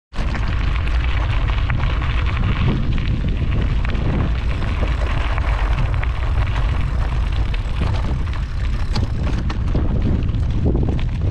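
Wind buffeting the microphone of a bike-mounted camera, a loud steady rumble, over the crunch and rattle of bicycle tyres on a gravel track.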